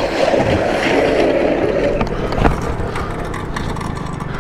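A small motorcycle and its rider going down on wet asphalt: a noisy scrape and slide with a sharp knock about two and a half seconds in.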